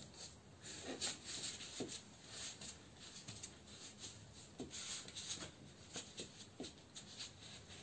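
Bare feet shifting in soft pool slide slippers, giving irregular faint sticky pops and rubs as the soles peel from and press into the footbeds.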